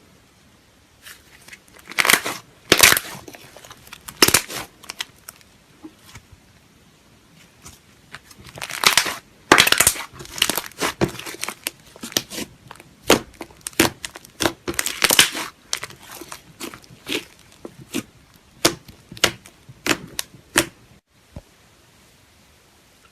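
Slime being squeezed and pressed by hand, giving irregular sticky pops and crackles in clusters with short quieter gaps between.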